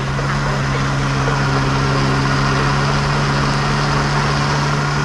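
Commercial countertop blender running steadily while blending a fruit smoothie: an even motor hum with a whir over it.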